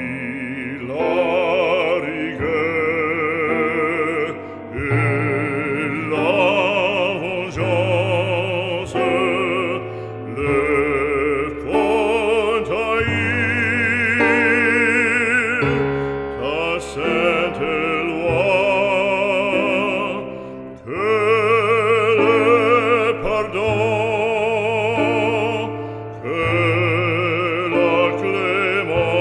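Background music: an operatic voice singing with a wide vibrato over low, sustained accompaniment.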